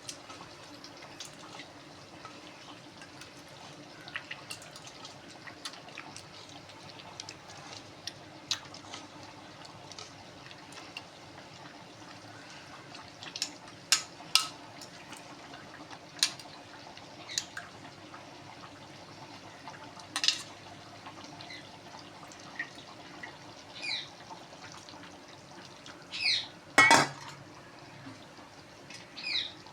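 Soaked tamarind being squeezed and swished by hand in a bowl of water, with intermittent splashes and clinks of the vessel. The loudest clatter comes near the end.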